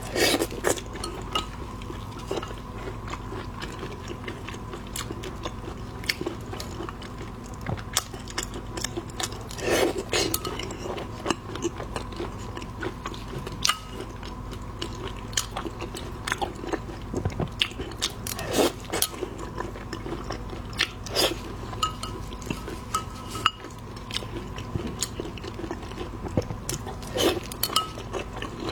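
Close-up eating sounds of seafood: repeated bites, crunching and chewing, with occasional clinks of dishes or utensils.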